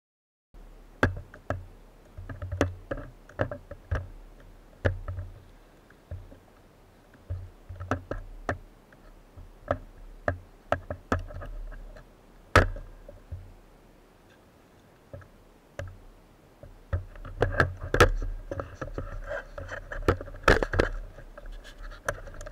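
Irregular clicks, knocks and dull thumps of footsteps in rubber clogs on wet rocks and of a speargun, fins and other diving gear bumping together, heard close up as handling noise on a head-mounted camera.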